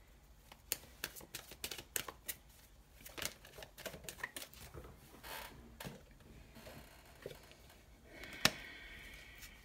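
Faint handling noise: scattered, irregular light clicks and taps of small objects being handled on a tabletop, with one sharper click about eight and a half seconds in and a soft rustle around it.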